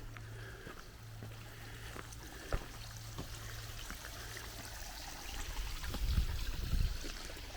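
Stream water running and trickling, a steady rushing hiss. There is a single sharp knock about two and a half seconds in and low rumbling near the end.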